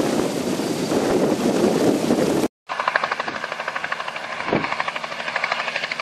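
Bell 47G helicopter flying past, its two-blade rotor making a fast, even chop. A couple of seconds in, the sound cuts out briefly, then comes back with the rotor chop clear and regular.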